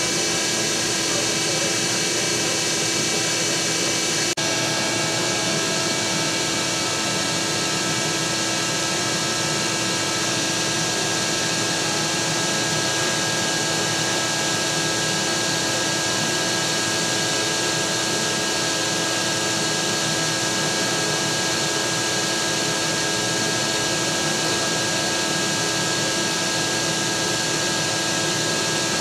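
Large Shop Vac wet/dry vacuum running steadily, a motor whine over rushing air as it sucks through a long hose. There is a brief dropout about four seconds in, after which the whine's pitch shifts slightly.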